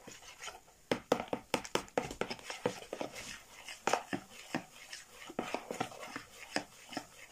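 Metal spoon stirring baking powder into warm kefir in a plastic mixing bowl, with irregular clicks and taps, a few a second, as it knocks and scrapes against the bowl.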